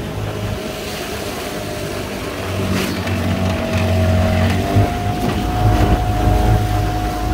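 15 hp outboard motor running steadily as it pushes an aluminium row boat, its pitch stepping up a little about four and a half seconds in. The low rumble grows louder in the second half.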